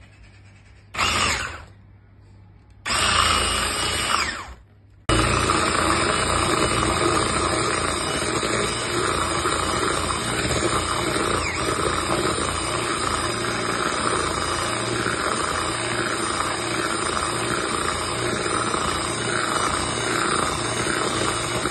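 Grundig electric hand mixer with twin whisk beaters beating eggs and sugar until creamy. It runs in two short bursts, then steadily from about five seconds in.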